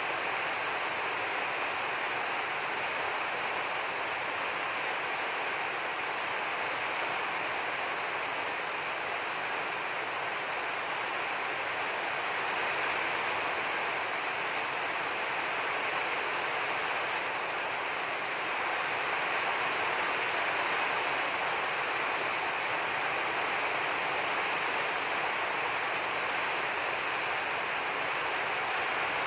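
A steady rushing hiss, like heavy rain or running water, even throughout with no separate sounds standing out; it grows slightly louder in the second half.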